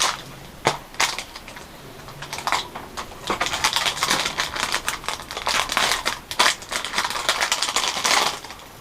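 Plastic packaging bags crinkling and rustling with quick clicks as graphics-card accessory cables and adapters are handled and unwrapped. The busiest crinkling comes in the second half.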